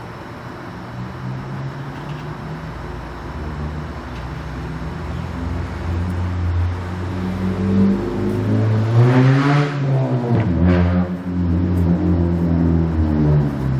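A motor vehicle's engine running with a low, steady hum that grows louder. It is loudest about nine to ten seconds in, where its pitch rises and then dips, and it carries on to the end.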